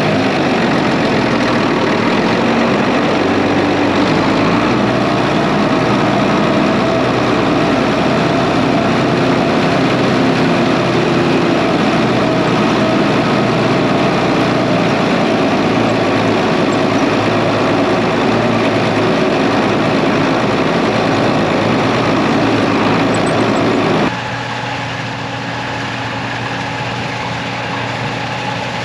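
Diesel engine of heavy farm machinery running steadily. About four-fifths of the way through, the sound drops suddenly to a quieter engine hum with a steady low tone.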